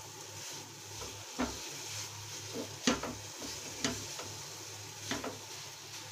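Wooden spatula stirring a thick coconut and milk-powder barfi mixture in a non-stick pan, with irregular scrapes and knocks against the pan.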